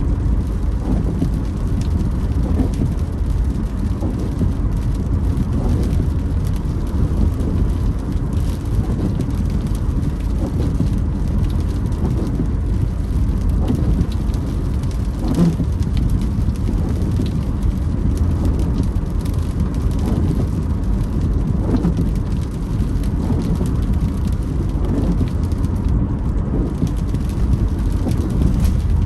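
Inside a car driving in the rain: a steady low rumble of engine and tyres, with rain on the body and the windscreen wipers creaking as they sweep every couple of seconds.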